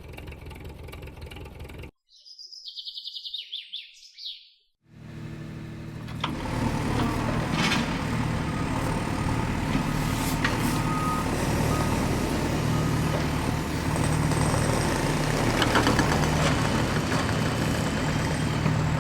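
A heavy vehicle's engine running steadily and loudly, with a few sharp clicks and a hiss over it. About two seconds in it cuts out for a near-silent gap that holds a short, high-pitched warbling electronic sound.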